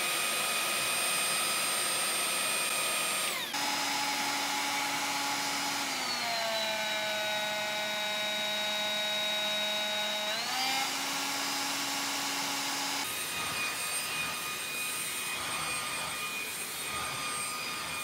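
Xiaomi Dreame V9 cordless stick vacuum running with a steady high whine. About three seconds in it cuts to an Electrolux handheld vacuum running, whose pitch drops about six seconds in and comes back up about ten seconds in. Near thirteen seconds the Dreame V9's whine returns as it is pushed over a rug.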